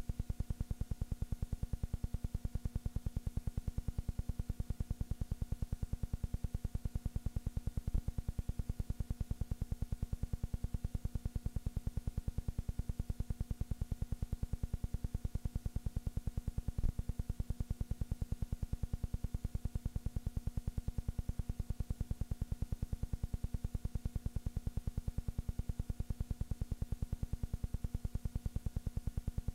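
Steady low electrical hum and fast, even buzzing pulse, with hiss, unchanged throughout and with no game sounds, as on the sound track of a silent film transferred to video. Two brief clicks break in, about a third of the way in and just past halfway.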